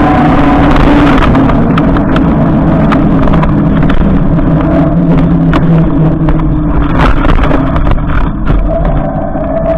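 Electric bike riding over snow: a loud, steady motor whine with several held tones that drift slightly in pitch, over rough rolling noise from the tyres, with scattered sharp clicks and knocks.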